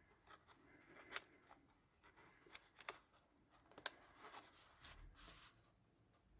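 Faint rustling and crinkling of paper and card being handled in a handmade junk journal, with a few short sharp ticks and snaps along the way.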